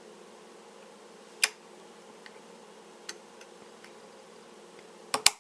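Small sharp metal clicks of a steel pin punch working against an M14 trigger group as the trigger pin is pushed out against hammer-spring pressure: one click about a second and a half in, a fainter one around three seconds, and two quick clicks near the end, over a faint steady hum.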